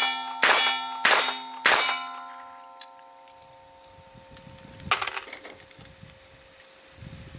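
Metallic clangs: four sharp strikes in quick succession, each ringing on for a couple of seconds, then one more strike about five seconds in that leaves a single long ringing tone.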